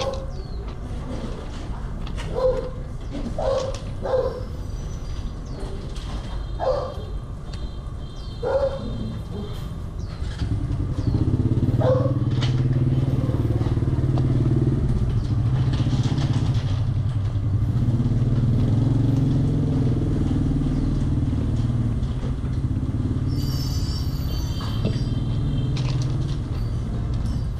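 A motor vehicle engine starts running steadily and fairly loudly about ten seconds in and keeps going. Before it there is a string of short, pitched sounds over quieter background.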